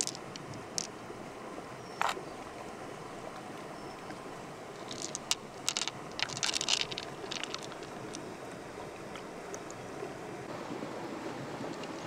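Shallow river water moving steadily, with scattered sharp splashes and clicks that are thickest about five to seven seconds in.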